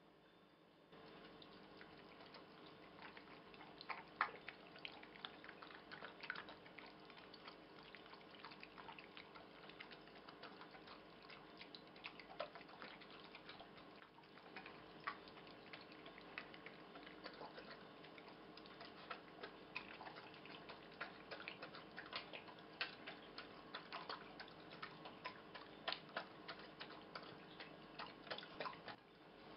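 American Staffordshire terrier eating from its bowl: faint, irregular clicks and wet smacks, with a few louder clicks.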